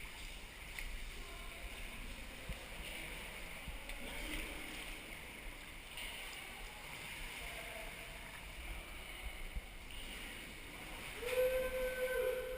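Water splashing and gurgling around a sea kayak as it is paddled, swelling and fading every second or two. A short pitched call sounds near the end.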